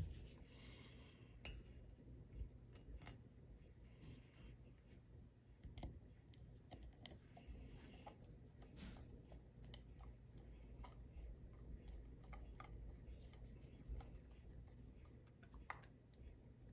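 Faint, irregular clicks and light scrapes of a flat-blade screwdriver turning a small brass pilot jet into an aluminium Yamaha Grizzly 660 carburetor body, snugged only until tight, over a low steady hum.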